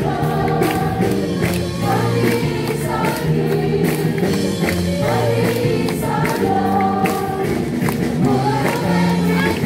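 Gospel worship song with a group of voices singing over a band with a steady beat.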